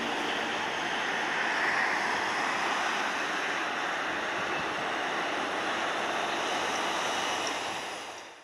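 Jet engines of a taxiing Boeing 787 airliner at low power, a steady rushing hiss heard from a distance, fading out near the end.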